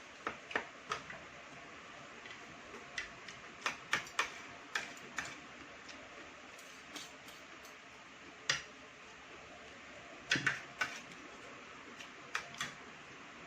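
Eating at a meal table: irregular sharp clicks and taps, some in quick clusters, over a faint steady hiss.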